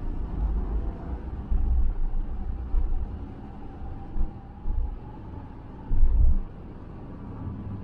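Cargo van driving, heard from inside the cab: steady road and engine noise with a low rumble that swells a few times, and a faint whine that slowly rises in pitch.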